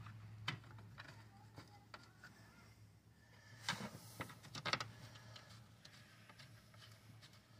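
Light plastic clicks and knocks as the BMW 325i's cowl drip tray is pressed and clasped into place, one about half a second in and a few more about four to five seconds in, over a steady low hum.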